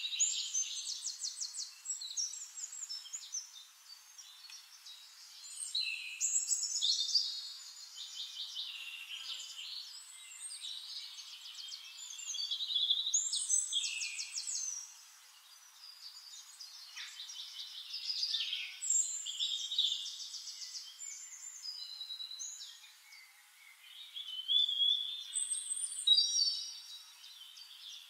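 Songbirds singing: fast trills, chirps and short whistled phrases, all high-pitched, coming in swells of song with brief lulls between them.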